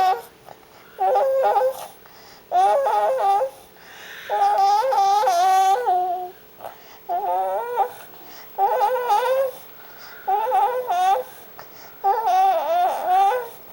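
Six-month-old baby's drowsy vocalising: a string of about seven short, wavering, sing-song moans, each about a second long with brief pauses between, made as she drifts off to sleep.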